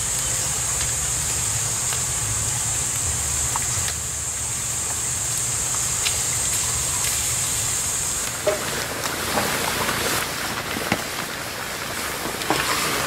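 Brine boiling in a shallow metal salt pan over a wood fire, with a steady high hiss that stops about eight seconds in. After that come scattered clicks and scrapes as a wooden scoop stirs the thickening salt slurry in the pan.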